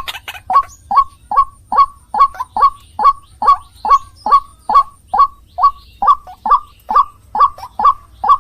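White-breasted waterhen (ruak-ruak) calling, the same short hooked note repeated evenly about twice a second, as played in a bird-lure recording.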